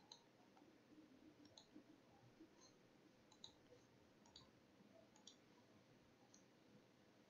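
Computer mouse buttons clicking faintly, several single and double clicks about a second apart, over faint room hiss.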